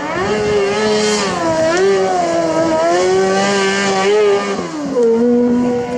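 Kartcross buggy's motorcycle engine revving high as it slides through a dirt corner. Its pitch climbs at the start, holds with small wavers, then drops and settles lower about three-quarters of the way through.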